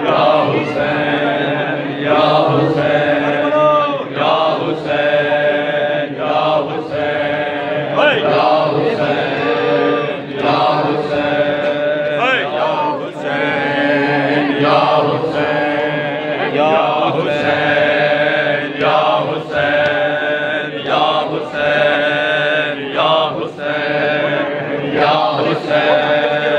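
A group of male voices chanting a noha (Shia mourning lament) in unison with long held notes. Sharp, even strikes of matam (hands beating on chests) keep the beat, a little slower than once a second.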